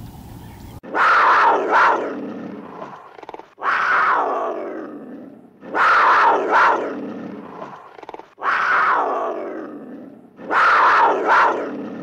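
A large animal roaring five times at even intervals, each roar starting suddenly and fading away over about two seconds.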